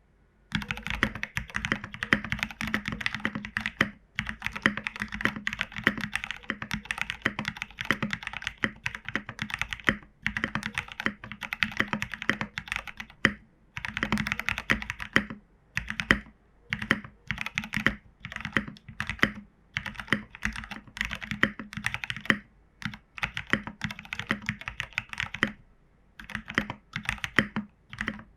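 Mechanical keyboard with Cherry Hyperglide Black linear switches, lubed and filmed and broken in, being typed on fast in runs of keystrokes with short pauses between them. The typing starts about half a second in.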